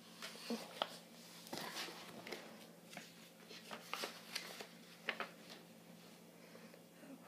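Handling noise from a book being lowered and set aside: scattered short rustles and small sharp clicks, about a dozen in all.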